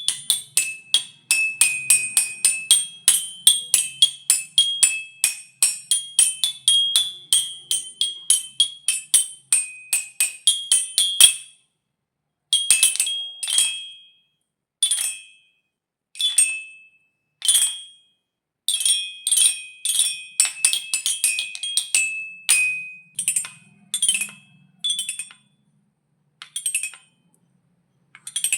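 Xylophone bars struck with a mallet, each note short and high. About the first eleven seconds are a fast run of strikes; after that come single notes and short runs with pauses between them.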